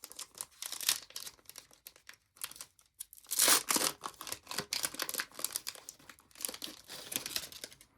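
A plastic trading-card pack wrapper crinkling and tearing as it is ripped open by hand. The loudest tear comes about three and a half seconds in.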